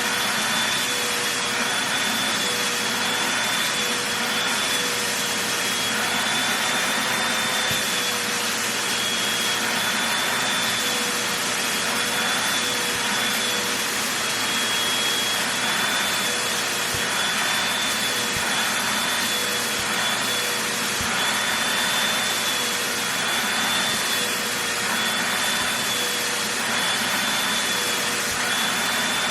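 Vacuum cleaner running steadily as it is worked over a blanket: a constant rushing hiss with a motor whine whose pitch wavers slightly.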